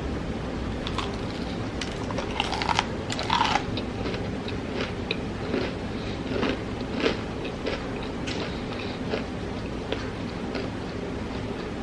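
A person biting into and chewing crispy KFC fried food. There is a run of loud crunches about two to three and a half seconds in, then softer, irregular chewing clicks, over a steady low background hiss.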